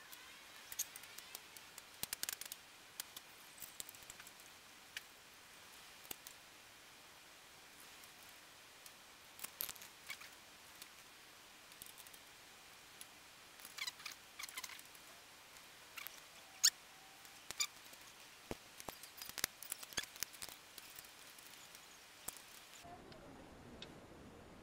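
Scattered light clicks and metallic taps in irregular clusters, from clutch parts (pressure plate and disc) being handled and fitted against the flywheel.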